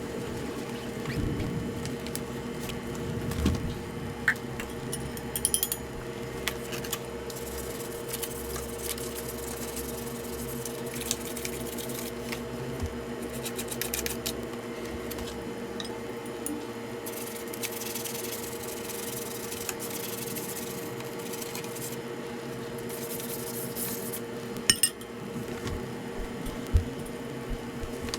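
Scattered light clicks, taps and rustles of hard small objects being handled, with a couple of sharper knocks near the end, over a steady hum.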